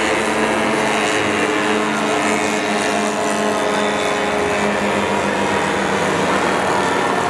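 Several radio-controlled scale WWI model airplanes flying overhead, their engines and propellers making a steady drone whose pitch drifts slightly as they manoeuvre.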